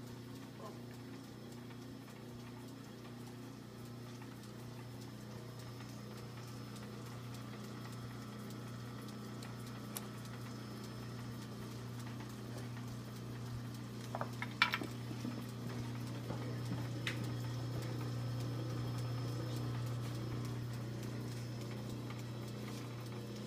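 American Straight Needle industrial sewing machine running: a steady motor hum under a regular knocking from its mechanism, with a few sharp clicks a little past halfway.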